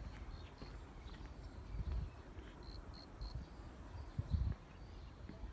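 Quiet outdoor background with a few faint, short high chirps, three in quick succession a little after halfway, and two low rumbling thuds.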